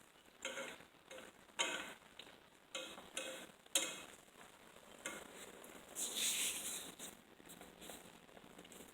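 Egg rolls frying in oil with a soft sizzle, broken by several short scrapes and taps of a utensil in the pan in the first few seconds; the sizzle swells louder briefly about six seconds in.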